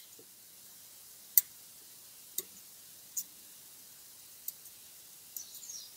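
Bonsai root scissors snipping through fine tree roots: five short, sharp clicks spaced about a second apart.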